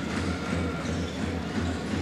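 Basketball arena crowd noise over a steady, low, regular drumbeat.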